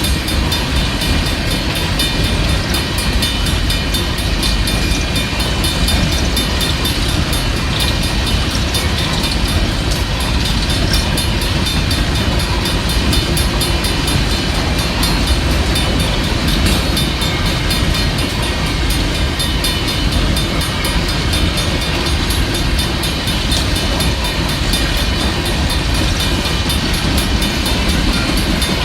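Union Pacific coal train's hopper cars rolling past close by, a steady loud rumble and rattle of steel wheels on the rails.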